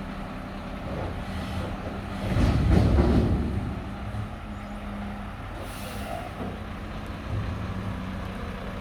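Mack McNeilus front-loader garbage truck's diesel engine running steadily. A louder low rumble lasts about a second, near the third second, and a short air hiss comes near six seconds in.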